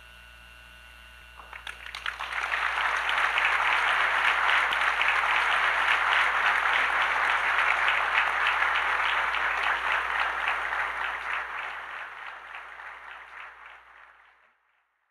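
A large audience applauding, the clapping swelling in about two seconds in, holding, then dying away near the end. A low mains hum from the old recording runs underneath.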